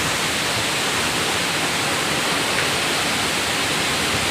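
Waterfall, falling water rushing with a steady, unbroken hiss.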